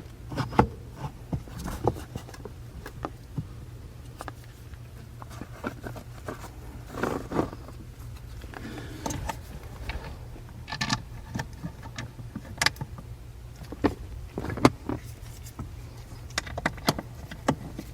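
Scattered metallic clicks and short rattles of a 1/4-inch socket, extension and wobble refitting the two 10 mm bolts that hold an accelerator pedal position sensor assembly, over a steady low hum.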